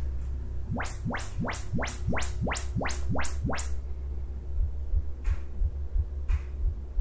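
Yamaha RX-V485 receiver's YPAO auto-calibration test signal played through the speakers: about ten quick rising sweeps, roughly three a second, then two fainter hissy bursts about a second apart near the end. The receiver is measuring each speaker to set its level and distance.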